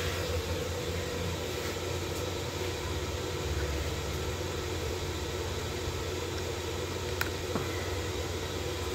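Steady background hum and hiss of room tone, like a running fan or air conditioner, with a faint click about seven seconds in.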